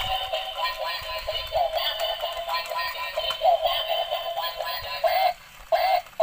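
Battery-powered dancing duck toy playing its built-in electronic song with a synthetic sung melody through its small, tinny speaker. The music cuts out briefly twice near the end.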